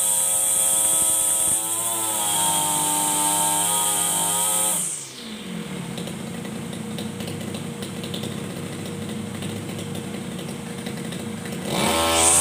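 Two-stroke 33cc BG328-type brush cutter engine running at full throttle, dropping to idle about five seconds in, then revving back up near the end.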